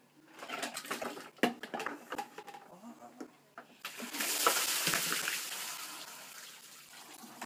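Water knocking and sloshing in a red plastic bucket as it is picked up and lifted, with one sharp knock about a second and a half in. About four seconds in the bucket is tipped and a rush of ice water pours over a man's head and splashes down, fading out over the next few seconds.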